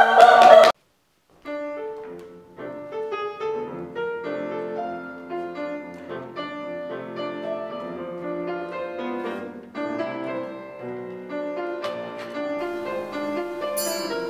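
Piano music, starting after an abrupt cut to silence about a second in.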